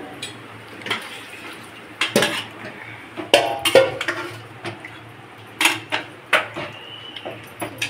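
Metal spoon and cooking pots clanking: about eight sharp clinks and knocks at uneven intervals, a few ringing briefly, over a low steady hum.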